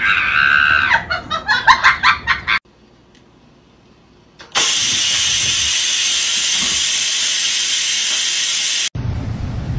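Electric pressure rice cooker venting steam: a loud, steady hiss that starts about halfway through and cuts off suddenly some four seconds later. Before it comes a quick run of pulsing voice sounds, then a short quiet gap.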